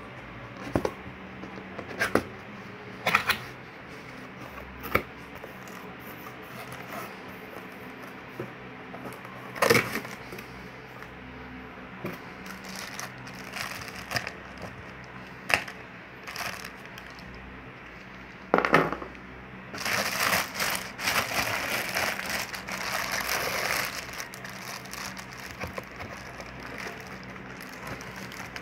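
A cardboard box and the plastic bag around a subwoofer being handled: scattered knocks and taps, then several seconds of plastic crinkling about two-thirds of the way through.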